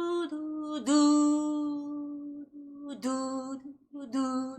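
A woman's voice singing a slow, gradually descending melody of held, steady notes without vibrato, each started with a soft 'du'. It is a demonstration of how to tongue the notes of an ocarina phrase.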